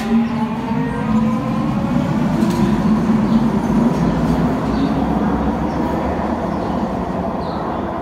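UTDC ICTS light-metro train accelerating away on its linear induction motors. An electric whine finishes climbing in the first moment, then a steady hum and rumble runs as the cars roll past, easing a little near the end.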